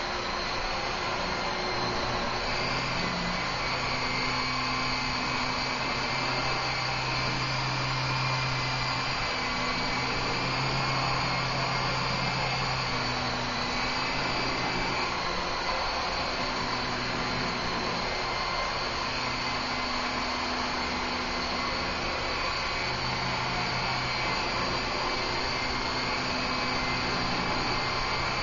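Blade CX2 coaxial micro RC helicopter in flight. Its small electric motors give a steady high whine, and the rotor hum below it rises and falls as the throttle changes.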